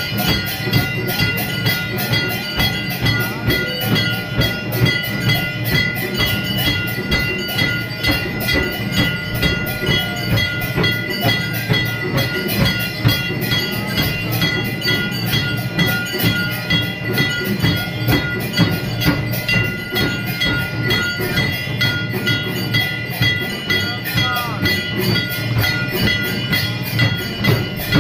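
Temple bells ringing continuously over fast, even percussion beats during a Hindu aarti, a dense metallic clangour.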